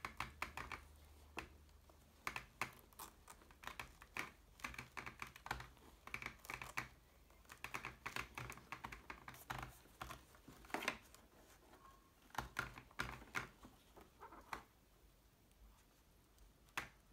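Irregular small clicks, taps and rustles of hands working an intercom cable and speaker into a motorcycle helmet's padded liner, thinning out near the end.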